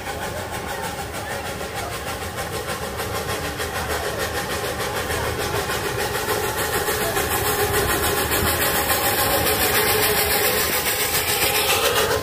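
Miniature railway locomotive hauling a passenger train, running with a quick, even beat that grows steadily louder as it approaches and passes close by.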